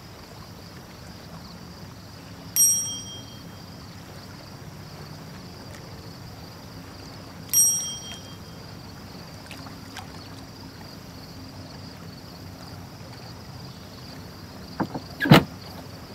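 A bright, ringing ding twice, about five seconds apart, over a faint steady high hiss. Near the end come a few loud, sharp knocks as the outboard motor's cowl cover is handled.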